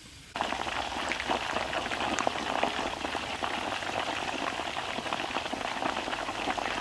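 Two whole chickens frying in hot oil in a wok, the oil sizzling and crackling steadily with many small pops. It starts suddenly about half a second in.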